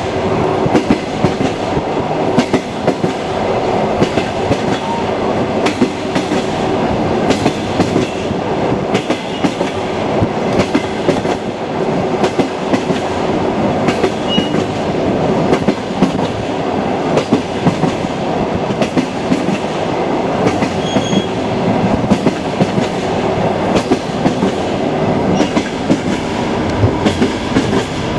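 Passenger train running along the track: a steady rumble with a low hum and frequent sharp clicks of the wheels knocking over the rail joints.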